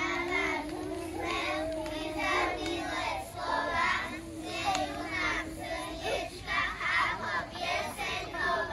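A group of kindergarten children singing together, holding long notes in short phrases.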